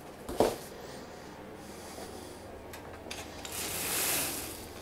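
Quiet handling of parts on a workbench: a single knock about half a second in, a few faint ticks, then a soft hiss that swells and fades for about a second near the end.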